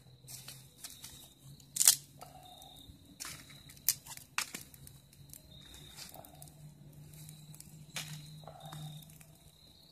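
Dry leaves and twigs crackling and snapping as a small, newly lit fire catches, with rustling as sticks are handled; irregular sharp snaps, the loudest about two seconds in.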